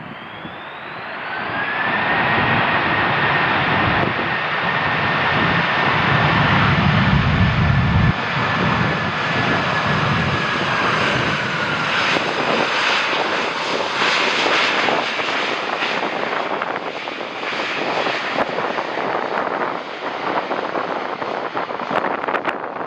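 Jet airliner on landing approach passing close by. Its engines make a loud, rushing roar with a high whine that holds steady and then drops in pitch about 12 seconds in as the aircraft goes past, leaving a rumbling roar that lingers.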